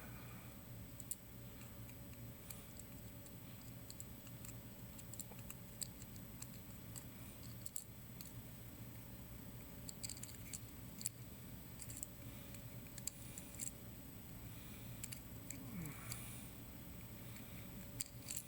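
Faint, scattered light clicks and taps of small metal parts being handled as a welder's power switch is put back together, over a steady low hum.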